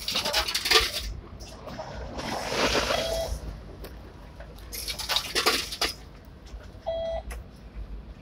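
Tram fare card reader beeping twice as passengers tap their cards to pay on the way out, the beeps about four seconds apart, amid the rustle and clatter of people stepping off.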